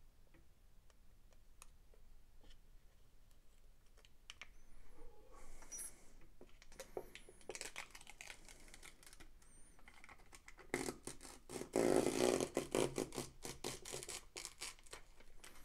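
Protective plastic film being peeled off an acrylic sheet: light clicks and ticks as a fingernail works at the corner, then a crackling rustle as the film pulls away, loudest in the second half.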